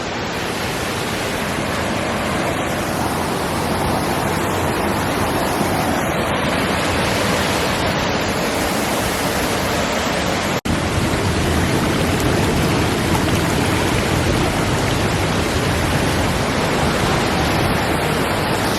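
Waterfall close by: a steady, loud rush of falling water, cut off for an instant about halfway through.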